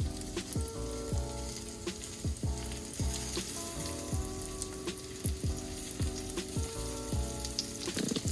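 Breaded fish fillets frying in hot olive oil in a pan: a steady sizzle with scattered crackles. Background music with a steady beat plays underneath.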